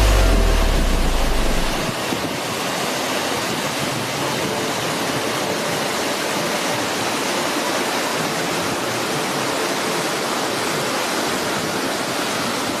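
Artificial rock waterfalls cascading into a pond, a steady rushing of falling water. A deep low rumble under it stops about two seconds in.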